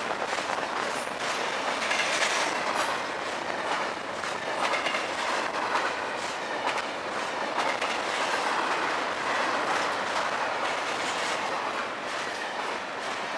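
Double-stack intermodal freight train's well cars rolling past close by: a steady rolling rumble of steel wheels on rail, with frequent irregular clicks and clacks as the wheels cross rail joints.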